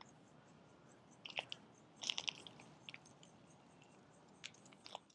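Faint scattered crackles and clicks over a low background hiss, coming in small clusters: a few a little past one second, a denser cluster at about two seconds, and a couple more near the end.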